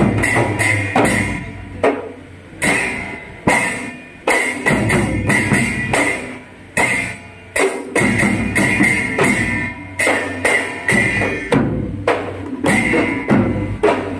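Dhol cholom drumming: several Manipuri dhols beaten together in fast rhythmic phrases. Each phrase is set off by a strong accented stroke after a short break, about every one to two seconds.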